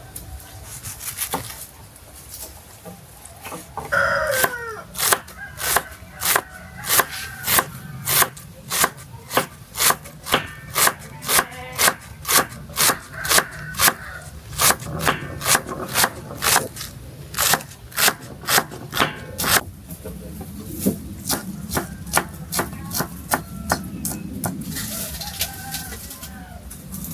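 Steady rhythmic chopping, about two sharp strokes a second, starting about four seconds in and stopping abruptly near twenty seconds, with a few softer knocks after. A rooster crows once about four seconds in.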